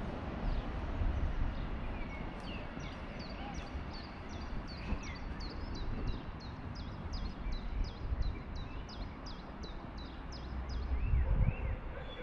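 A small bird singing a long, even run of short, high notes, about three a second, over a steady low rumble.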